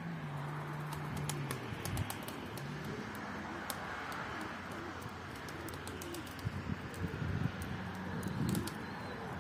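Domestic pigeons cooing in low, wavering calls, more strongly in the last few seconds.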